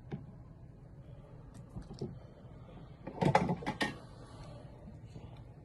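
Small tools and parts being handled during soldering work: a few faint clicks, then a short cluster of sharp clicks and rattles about three seconds in.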